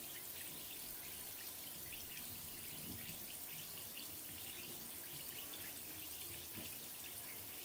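Bath bomb fizzing underwater in a tub of hot water: a faint, steady hiss made of many tiny crackles and pops, like a cauldron brewing.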